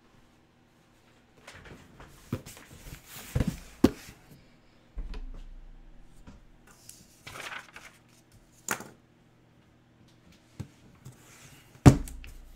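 Cardboard shipping boxes being set down and handled on a wooden tabletop: a few dull knocks two to four seconds in, cardboard rustling and a sharp click later, and a heavy thump near the end.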